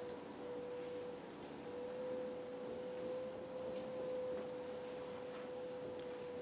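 A steady mid-pitched hum over quiet room noise, with a few faint ticks of a marker writing on a whiteboard.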